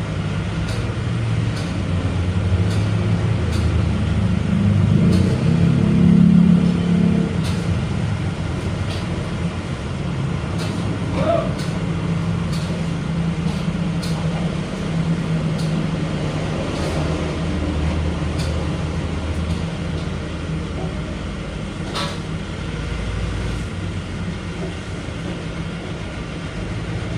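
Heavy diesel engine running steadily, swelling louder about five to seven seconds in, with a few light clicks and knocks over it.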